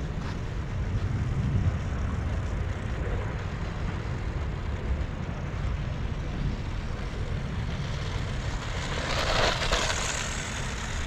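Wind rumbling on the microphone over the running of a Losi Mini JRXT 1/16-scale RC truck, its brushed electric motor and tyres driving over the ground. Near the end there is a louder, hissier stretch that rises and falls back.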